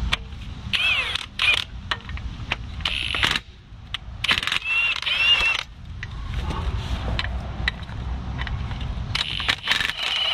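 Impact wrench with a 16 mm socket run in several short bursts, its motor whine rising and falling, loosening the bolts to separate a truck's front brake caliper.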